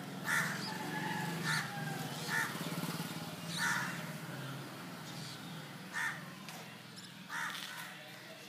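Crows cawing, about six short harsh calls spaced out over a few seconds, above a steady low hum.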